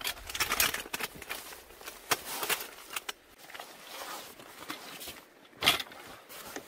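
Nylon bags and stuff sacks rustling as camping gear is handled and packed by hand, in irregular bursts, with one sharper, louder noise about five and a half seconds in.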